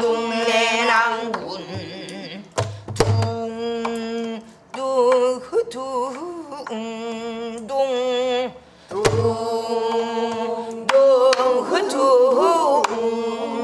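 A woman singing pansori in long held notes with a wide, wavering vibrato, beating time on a buk barrel drum with a stick. A few sharp drum strokes with a deep thud mark the beat.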